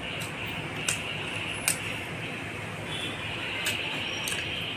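Eating sounds: kulcha bread being chewed, with a few sharp mouth clicks, the loudest just under two seconds in, over a steady background hiss.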